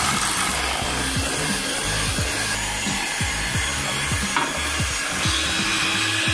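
Electric hand mixer running steadily, its whisk beaters beating egg into creamed butter and sugar and rubbing against the stainless steel bowl.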